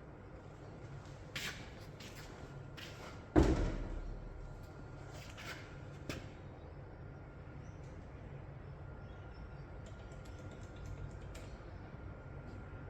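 Knocks and clicks of hard objects being handled, with one loud thud about three and a half seconds in that rings on low for about a second, over a low steady background hum.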